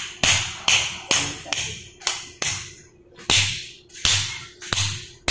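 Repeated sharp knocks, about two or three a second with a short pause in the middle: cooked mud crab shell being pounded to crack the hard claws.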